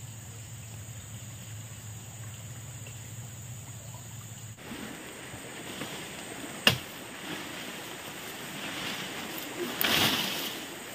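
Flowing river water, a steady rush. A low hum underneath stops abruptly a little before halfway, and there is a single sharp click about two-thirds of the way through.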